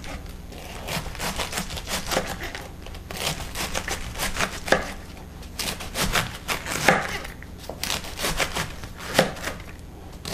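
Kitchen knife thinly slicing a head of green cabbage on a plastic cutting board: runs of quick, short knife strokes, each ending in a tap on the board.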